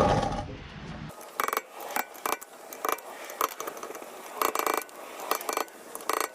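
Metal tools and car parts clinking and scraping during hand work: a rough scraping sound at first, then a string of irregular sharp metallic clinks.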